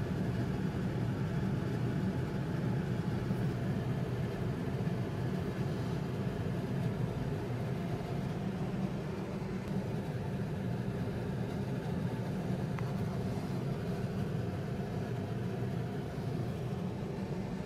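Steady low mechanical hum running without change.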